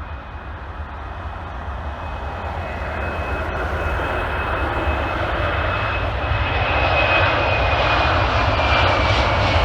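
Boeing 767-400ER airliner's General Electric CF6 turbofan engines, growing steadily louder, with a thin high whine that slowly drops in pitch over a deep rumble.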